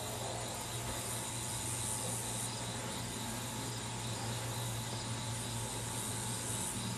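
Steady outdoor background: an even hiss with a constant low hum, and a faint high-pitched insect sound that swells a little about a second in and again near the end.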